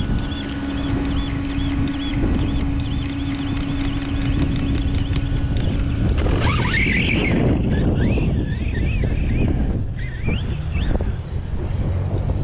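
Redcat Kaiju RC truck's brushless electric motor running at speed over rough ground, with wind on the microphone. About six seconds in it gets louder, the whine rising and falling as the throttle is worked.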